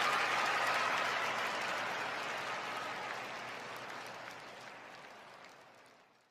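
Applause from a huge arena crowd, a dense even clatter of thousands of hands, fading out steadily to silence by the end.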